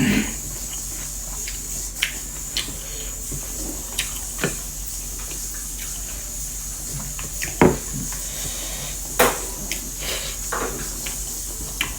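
Close-up eating sounds: chewing and mouth smacks, with a handful of short sharp clicks spread through.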